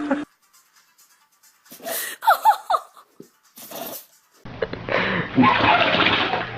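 A dog sneezing, heard as short sharp bursts across several spliced clips, with brief high squeaky sounds about two seconds in and a longer, louder noisy stretch near the end.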